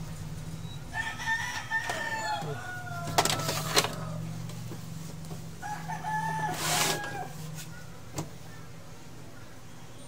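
A rooster crowing twice, about a second in and again about six seconds in, each crow held and then dropping in pitch at the end. A few sharp clicks fall between the crows, over a steady low hum that stops near the end.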